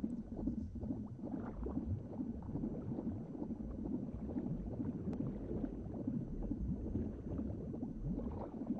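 Low, steady bubbling and gurgling rumble of liquid, an underwater-like sound with no regular beat.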